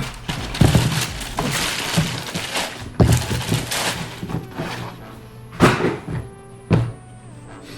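Handling noise from a new sneaker and its packaging: rustling bursts and about four sharp thumps, over background music.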